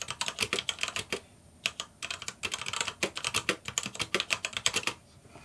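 Typing on a DREVO BladeMaster TE mechanical keyboard with black linear switches: a quick run of key clacks, pausing briefly about a second and a half in and again near the end.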